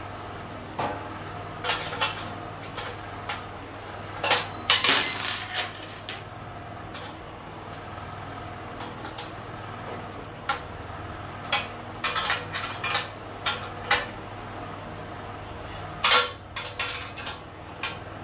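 Metal clinks and clatter of bolts, hardware and a hand tool against a steel sewing-machine stand as it is bolted together: scattered sharp ticks, with louder rattling bursts about four seconds in and again near the end. A steady low hum lies underneath.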